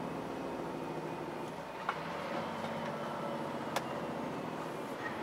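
Semi-truck's diesel engine running steadily, heard from inside the cab, with a couple of brief faint clicks about two and four seconds in.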